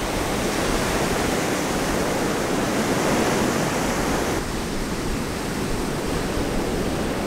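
Steady rush of ocean surf breaking on the beach, a continuous noise with no pitch, its upper hiss dulling slightly about four and a half seconds in.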